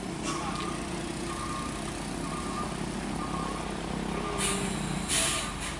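Truck engine running under load as it climbs a steep wet hairpin, a steady low drone. Short sharp hisses come once near the start and two or three times about four to five seconds in.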